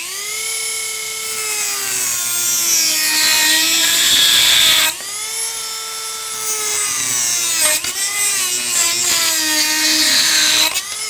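Dremel rotary tool whining at high speed as it cuts the old hinge arms off a VW armrest lid, its pitch sagging under load. It briefly lifts off and comes back about halfway through, then spins down at the end.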